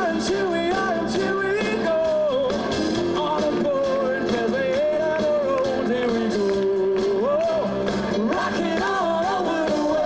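Live concert music: a singer with an orchestra, the voice carrying a melody with long held notes.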